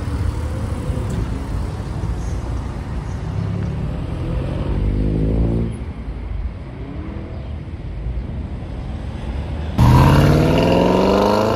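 Lamborghini engine accelerating, its pitch rising for a couple of seconds before it drops away. Near the end a louder car engine starts suddenly and accelerates with rising pitch.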